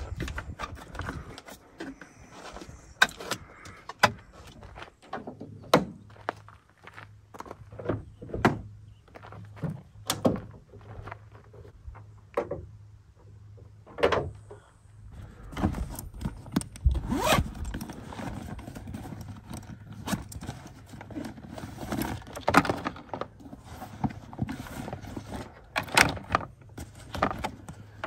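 Handling noises of work on a Jeep: irregular clicks, knocks and clatter as a fitting is tightened with a hex key, the hood is lifted, and cables are pulled from a zippered bag.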